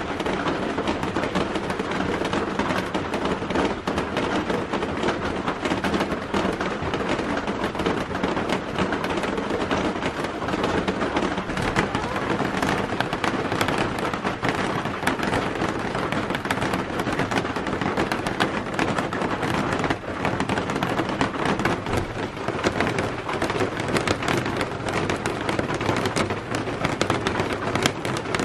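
A dense, steady crackling patter, like heavy rain, unbroken throughout.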